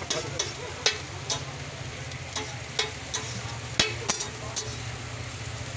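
Egg-coated shami patties sizzling on a flat iron griddle, with a metal spatula clicking and scraping against the hot plate about ten times, the sharpest strike a little before four seconds in. A low steady hum runs underneath.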